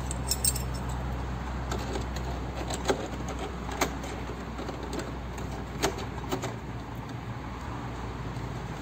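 Steel open-end wrenches clinking against each other and the wire hanger as they are slipped on, a handful of sharp metallic clicks spaced out over a steady low hum.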